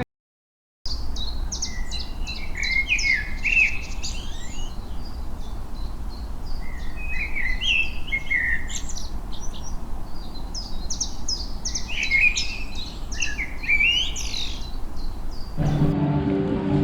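Songbirds singing: repeated bursts of quick, high chirps and short trills, over a steady low background rumble. The birdsong starts after a brief silence and cuts off shortly before the end, giving way to a different sound with steady pitched tones.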